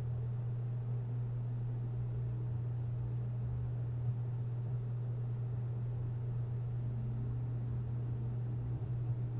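Steady low background hum with faint hiss, unchanging throughout.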